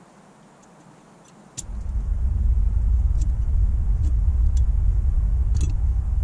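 A loud, steady low rumble comes in suddenly about a second and a half in and keeps going, with light clicks of small metal pump parts being handled on the bench over it.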